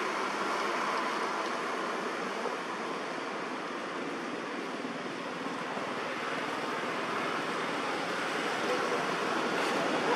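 Steady rushing noise with no distinct events, growing slightly louder near the end.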